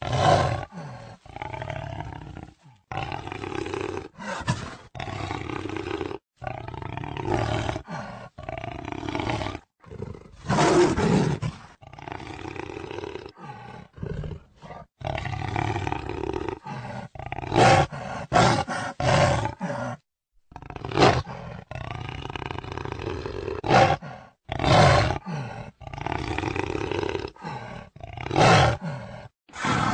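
Jaguar roaring: a long run of rough calls, each lasting from under a second to about two seconds, broken by short silent gaps.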